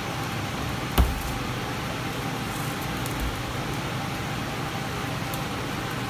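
Steady background hiss, with one sharp click about a second in and a few faint ticks after it, from wire strippers and cable being worked at a plastic electrical box.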